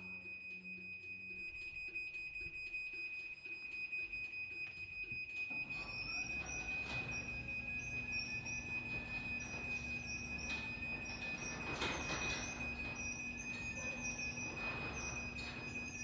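LiftMaster garage door opener sounding its high-pitched safety beeping for an app-triggered close. About five seconds in, the opener's motor starts and the sectional door rumbles down its tracks with faint squeaks from the rollers, while the beeping carries on.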